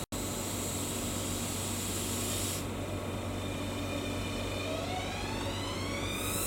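Electric train over a steady hiss; about four and a half seconds in, its traction motors start a rising whine as the train accelerates.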